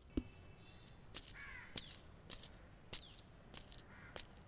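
Faint birds calling, a few short chirps that slide down in pitch, scattered over a quiet background. A single footstep on a hard floor sounds right at the start.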